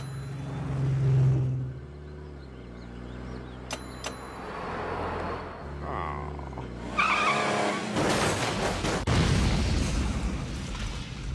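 Cartoon sound effects of a car engine running and revving. About seven seconds in the tyres screech, and a second later comes a crash and explosion, followed by a long rumble of noise.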